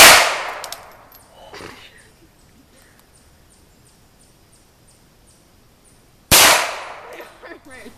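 .22 LR pistol fired twice, about six seconds apart: each shot a sharp crack that fades out over about a second.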